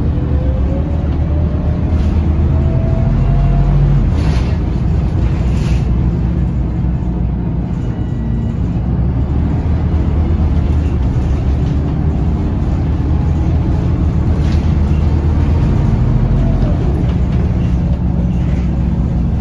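Scania L94UB bus's rear diesel engine and ZF automatic gearbox heard from inside the cabin, pulling under load. A gearbox whine rises in pitch over the first few seconds and ends with a gear change. The engine then runs steadily at cruising speed, with a couple of brief hisses near the start.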